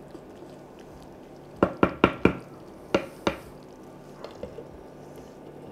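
Wooden spoon knocked against the rim of an earthenware clay pot, four quick knocks then two more, followed by a few light clicks as a glass lid is set on the pot.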